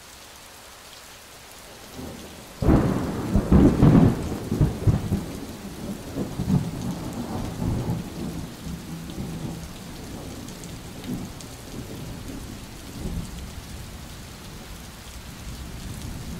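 Steady rain with a thunderclap about two and a half seconds in, rumbling and fading away over several seconds.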